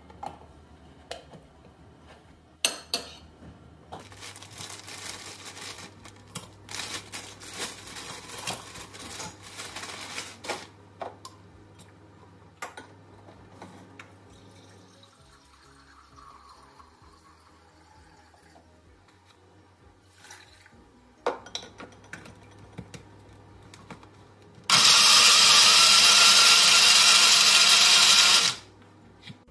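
Small countertop blender running for about four seconds near the end, blending chopped fruit into a green smoothie, starting and stopping sharply. Before it come scattered clicks and handling noises from loading the jar.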